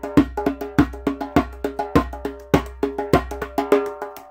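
Djembe played with bare hands: a quick run of strokes on the skin head, a strong one about every 0.6 s with lighter ones between, and a deep bass tone ringing under the strong strokes.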